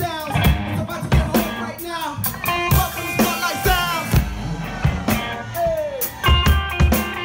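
Live band music: a drum kit keeping a beat and an electric guitar playing, with a man's vocals into a microphone over the top.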